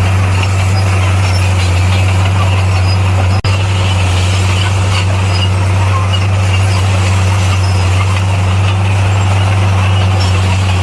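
Heavy diesel earthmoving machine's engine running steadily with a deep, even drone, broken by a momentary dropout about three and a half seconds in.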